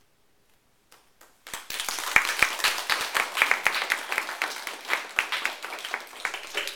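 A small group of people applauding by hand, starting suddenly about a second and a half in and keeping up a dense patter of claps.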